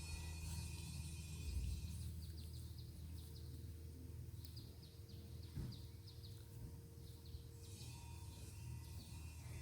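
Faint outdoor ambience: small birds chirping in quick little runs over a steady low rumble.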